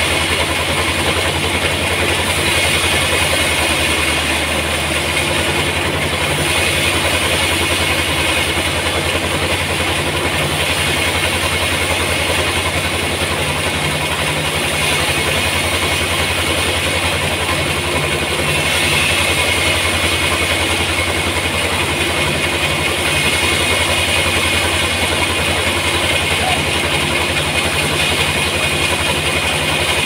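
Large sawmill band saw running steadily, its blade ripping lengthwise through a huge trembesi (rain tree) log in one even, unbroken machine drone.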